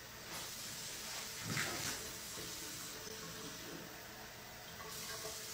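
Faint running water in a stainless kitchen sink as dishes are washed by hand, briefly louder about a second and a half in.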